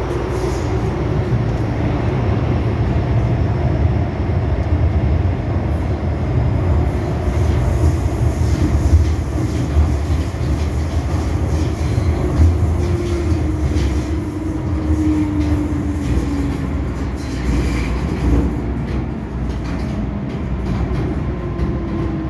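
MTR Island Line M-Train running, heard from inside the passenger car: a loud, steady rumble from the wheels and running gear, with a faint motor whine that slides down in pitch about two-thirds of the way through.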